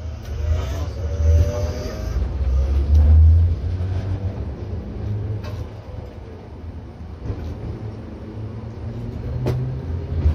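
Toden Arakawa Line 7000-class tram with nose-suspended traction motors, heard from inside while running: a deep rumble from its motors and gears, with a faint rising whine early on as it picks up speed. There is one sharp click near the end.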